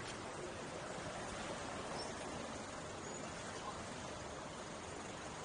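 Steady rushing hiss of wind and tyre noise from a car driving along a paved road, with no clear engine note.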